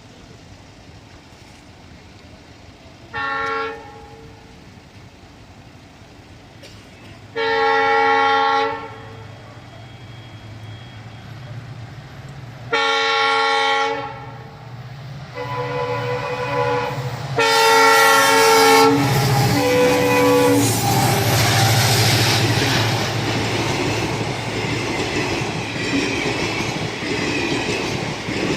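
Indian Railways express train's locomotive air horn sounding about six times, short and long blasts, as the train approaches. From about two-thirds of the way in, the train passes close by: a loud, steady rumble of wheels on the rails with clickety-clack.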